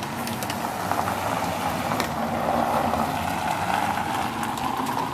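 Pressurized fuel hissing steadily out of a Coleman Gold Bond 280 lantern's generator tip. The valve is shut but a stream still comes through, because the generator tip is not fully closing it off.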